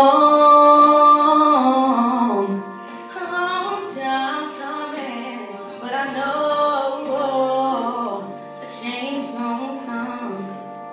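A woman singing a slow soul ballad solo into an amplified microphone. She opens with a long, loud held note, then sings softer gliding phrases.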